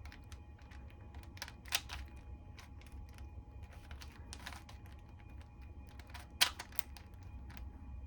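Plastic 4x4 Rubik's cube being twisted by hand: irregular clicks and clacks of its layers turning, one louder clack a little after six seconds in.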